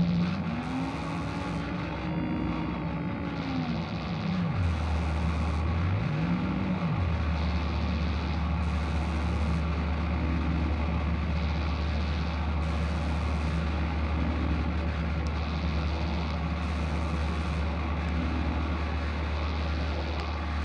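Experimental noise music from a live improvisation: a dense, distorted drone. A low tone slides up and back down over the first few seconds, dips, rises once more and then settles into a steady low hum about seven seconds in, while a hiss swells in and out about every two seconds.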